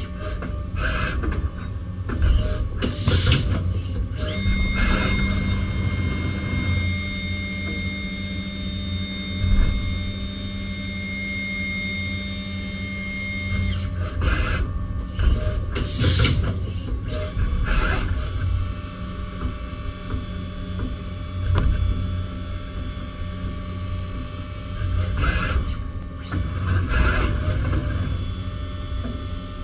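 CNC machining centre milling a miniature engine block. A spindle whine rises about four seconds in, holds steady for about ten seconds and then stops, with short bursts of cutting noise and clicks of the machine moving.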